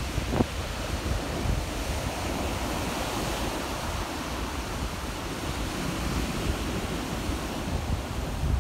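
Rough surf breaking and washing up a pebble beach: a steady rushing wash of waves, with wind buffeting the microphone as a low rumble.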